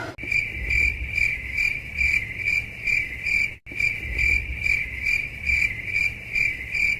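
Cricket chirping sound effect: a steady high trill pulsing about twice a second, with a brief gap a little over halfway through where it restarts.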